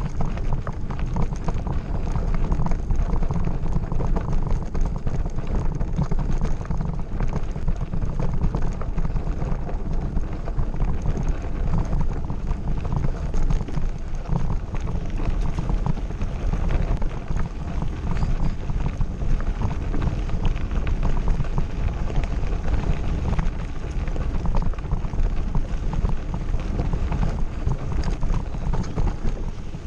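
Mountain bike riding over a gravel road: continuous rattling and crunching of the tyres and bike over stones, with a low rumble of wind on the microphone.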